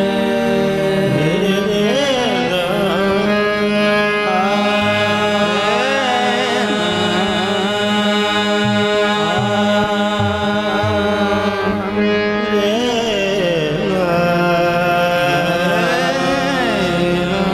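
A male voice singing a naat in long, wavering, gliding phrases over steady held notes from the qawwali party's accompaniment.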